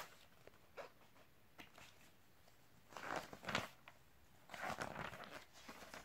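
Pages of a sticker album being turned by hand: two soft paper swishes, the first about three seconds in and the second about a second and a half later.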